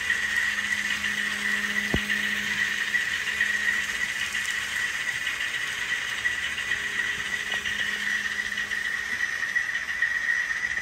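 Simulated diesel engine sound from the sound decoders of two N scale Kato GE AC4400CW model locomotives as they pull away with a string of coal cars: a steady low engine hum under a constant high-pitched whine, with a sharp click about two seconds in.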